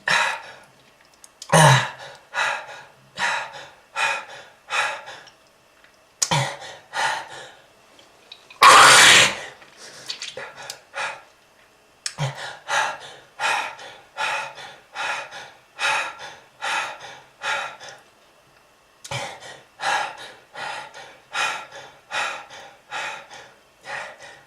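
A smoker coughing in repeated fits, with many short hacking coughs about one to two a second in runs with brief pauses. Just under nine seconds in comes one long, harsh, louder hack lasting about a second.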